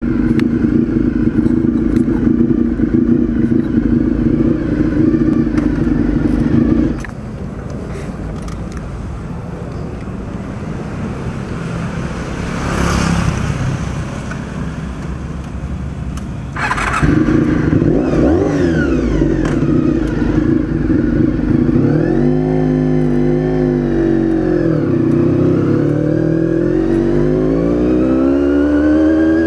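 Honda VFR400 NC30's V4 engine idling steadily, then cutting out about seven seconds in. It starts again with a sudden burst about ten seconds later and idles, then revs up and down in rising and falling pitch as the bike pulls away and rides off.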